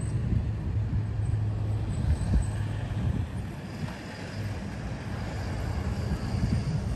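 Outdoor street ambience: an uneven low rumble of wind buffeting the microphone and road traffic, easing a little about halfway through.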